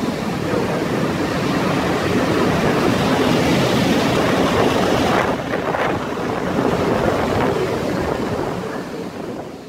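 EP09 electric locomotive running light past at close range: a loud, steady rush of running noise, with wind on the microphone. It dies away near the end.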